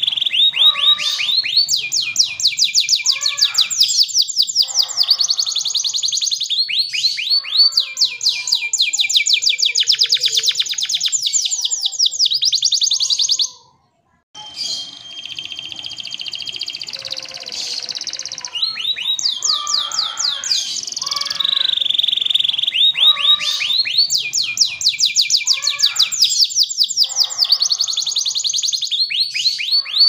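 Domestic canary singing a long song of fast rolling trills: runs of rapid, high repeated notes, some sweeping in pitch. The song breaks off for under a second about halfway through.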